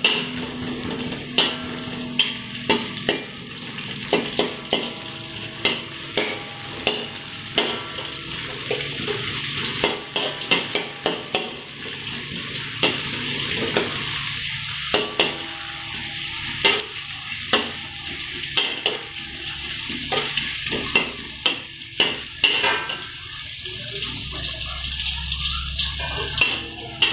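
Shallots and garlic sizzling in hot oil in a metal wok, with a spatula scraping and clicking against the pan at an irregular pace as they are stirred. The aromatics are being sautéed until fragrant.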